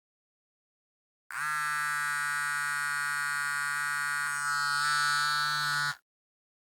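Mobile phone vibrating: one continuous, steady buzz of nearly five seconds that starts about a second in and cuts off sharply.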